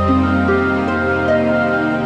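Background music: long held notes over a steady low bass, with new notes coming in every half second or so.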